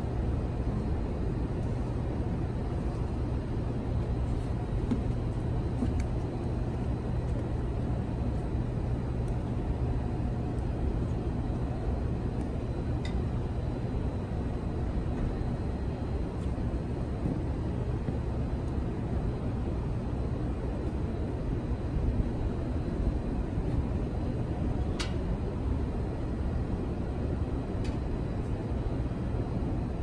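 Steady low city rumble of distant traffic and machinery, with an even hum underneath and a few faint clicks.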